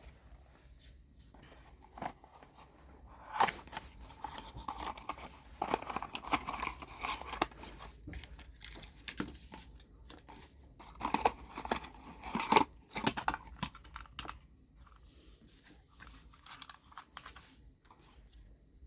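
Crinkling and tearing handling noise with scattered sharp clicks, loudest a few seconds in and again past the middle.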